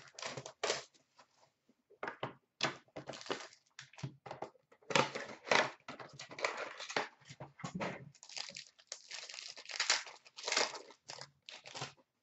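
Packaging of a hockey trading-card box being torn open and crinkled by hand: a run of irregular rustles, tears and crackles of paper and plastic wrapping.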